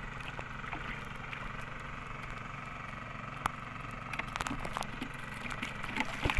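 A steady low engine drone, with small splashes and clicks of hands working in shallow water starting about three and a half seconds in, loudest near the end.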